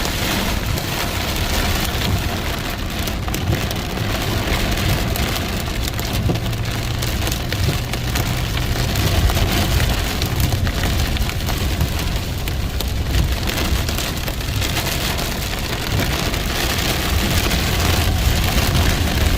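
Heavy rain pouring steadily onto a hard surface, with many sharp ticks of drops striking and a steady low rumble beneath.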